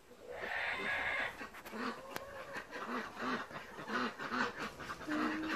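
Hens calling: a harsh call in the first second, then a run of low clucks about two a second, and a longer drawn-out note near the end.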